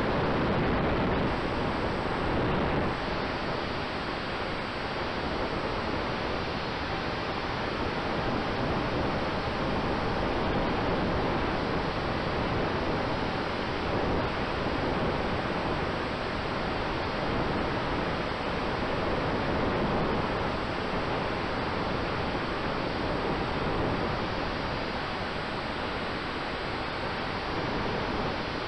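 Steady rush of airflow buffeting the microphone of a camera riding on a large-scale model aircraft in flight, with a faint steady tone underneath.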